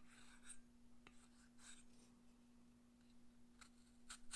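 Faint scraping of a vegetable peeler's blade drawn down a cucumber's skin, shaving off strips in a few short strokes, a little louder near the end.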